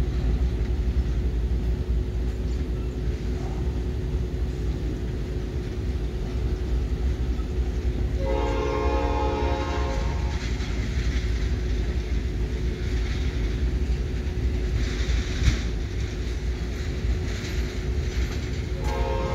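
Freight train running past with a steady low rumble and some wheel clatter; the diesel locomotive's air horn sounds a blast of about two seconds about eight seconds in, and a second blast begins near the end.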